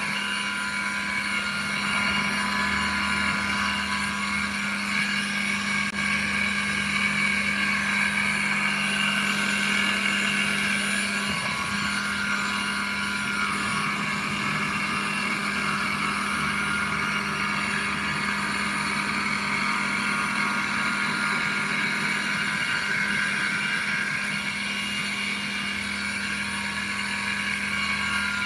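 Small electric motors of a bench battery-charging rig running steadily: a low hum with several steady higher whining tones over it.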